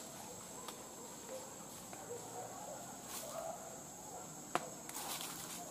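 Steady, high-pitched chirring of insects, likely crickets, in forest undergrowth, with one sharp click about four and a half seconds in.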